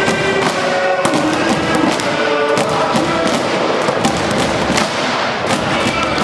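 Spectators clapping and banging in a large sports hall, many sharp irregular cracks over a mix of voices and pitched sounds.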